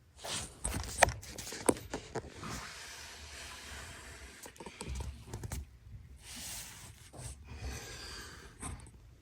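Work noise from tools and parts being handled: a few sharp clicks and knocks in the first two seconds, the loudest about a second in, then several stretches of breathy, rustling hiss.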